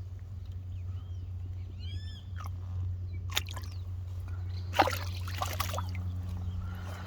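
Water splashing as a hooked snook thrashes at the surface while being drawn in to the bank, the loudest splashes about three and a half seconds in and again around five seconds in. Short bird chirps sound around one to two seconds in, over a steady low hum.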